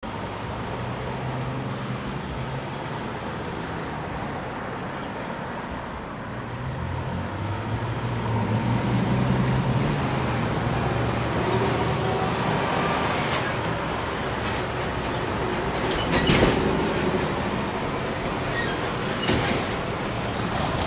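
Road traffic at an intersection: a diesel truck's engine running and pulling away, with other vehicles passing. Two short sharp knocks come near the end.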